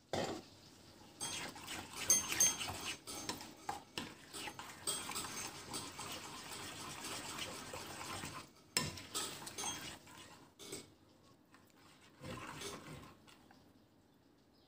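Metal spoon stirring a thick, creamy mixture in a porcelain bowl, scraping and clinking against the bowl's sides. It stops near the end as the spoon is lifted out.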